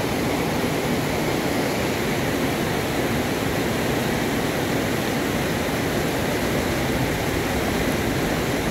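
River rapids rushing steadily over rock ledges: a constant, even sound of churning whitewater.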